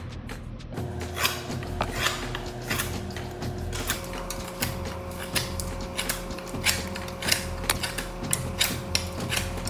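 Bowie knife blade slicing through paper in a run of quick strokes, each a short crisp slice, about one to two a second and coming faster near the end.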